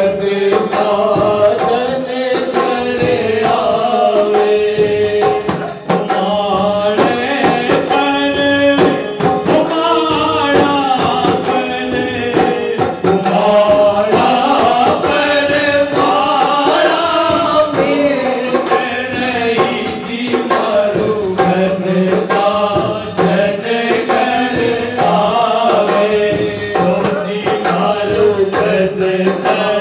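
Phagan folk song: singing over a steady percussion beat.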